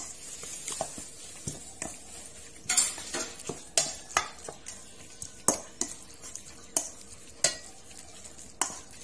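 Metal ladle stirring and scraping in a stainless steel bowl, mixing chopped meat with laab chili powder: irregular clinks and scrapes of metal on metal, with wet mixing between them.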